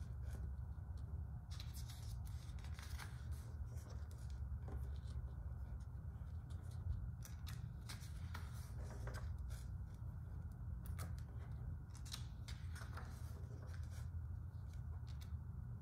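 Pages of a large art book being turned by hand, with scattered paper rustles and crinkles and the hand sliding over the pages, over a steady low hum.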